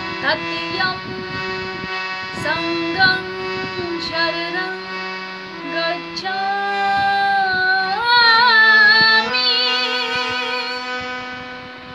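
A woman singing a Buddhist devotional song (Buddha vandana) over steady held accompaniment notes. She moves through short phrases, then holds long notes, the last one with a wavering vibrato.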